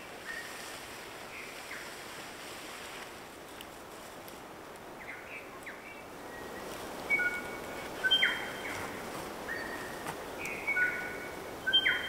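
Wild birds singing short, clear whistled notes, some held level and some sliding, coming more often and louder in the second half, over a steady outdoor hiss.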